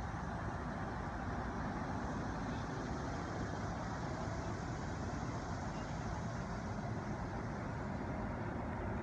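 Steady low rumbling outdoor background noise, even throughout, with no distinct events.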